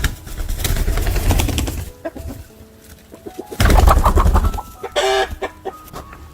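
Chickens clucking and flapping their wings in two noisy flurries, with a short squawk about five seconds in.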